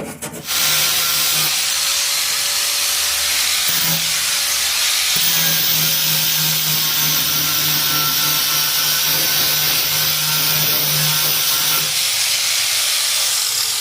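Electric grinder sand-grinding surface rust off the car's steel floor pan, starting about half a second in and running steadily with a motor hum and a hiss of the disc on metal. It eases off near the end.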